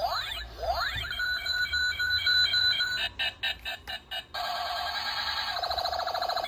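Electronic sound effects from a battery-powered toy gun: quick laser-style pitch sweeps, a steady beeping pattern, a few sharp clicks, then a fast pulsing warble that starts a little past the middle.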